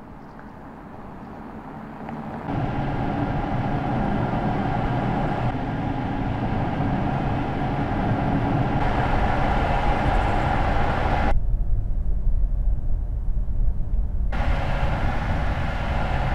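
Mercedes-Benz S-Class plug-in hybrid driving: steady tyre and drive noise with a hum, fading in over the first couple of seconds and then rising sharply. The sound changes abruptly every few seconds.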